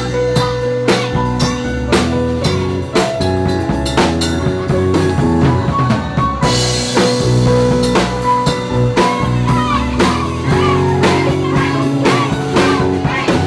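Karaoke backing music playing its instrumental intro: drum kit, bass and guitar over a steady beat, with no vocals yet.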